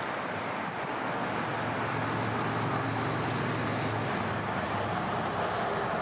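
Steady road traffic noise, with a vehicle's engine hum swelling through the middle.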